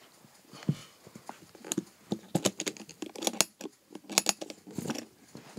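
Irregular clicks and rattles of toys being handled against a toy toolbox, its metal latch clicking.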